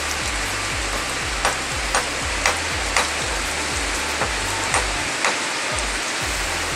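Background music with a steady beat of about two hits a second and a deep stepping bass line, over a steady hiss.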